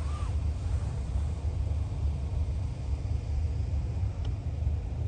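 Steady low rumble, with a brief high chirp right at the start.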